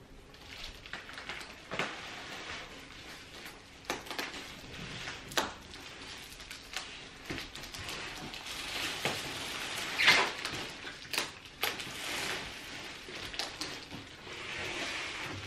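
Crinkling and rustling of plant-shipping packaging, a silver foil insulated liner and polyfill stuffing, being pulled up out of a cardboard box. Sharp crackles come now and then, the loudest about ten seconds in.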